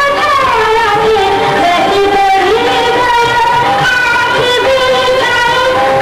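A song with a singer holding long, wavering notes over instrumental accompaniment, steady throughout.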